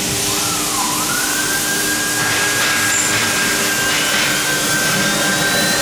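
Electric spindles of a two-spindle CNC router whining during a spindle switch: a whine dips and then rises to a steady pitch about a second in, and a second, higher whine climbs slowly through the second half, over a steady rushing hiss.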